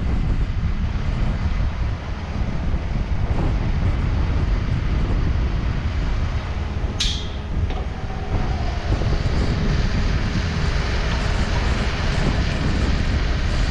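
Wind buffeting the microphone over the steady running of a Takeuchi TB260 mini excavator's diesel engine as it works its arm and bucket. About seven seconds in there is a brief, sharp high-pitched sound.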